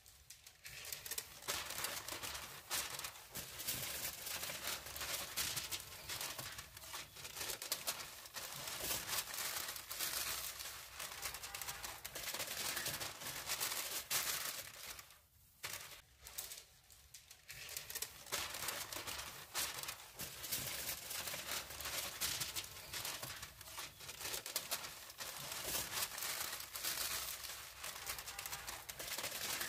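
Aluminium foil crinkling and crackling continuously as hands fold and crimp it around a joint of meat, with a short lull about halfway through.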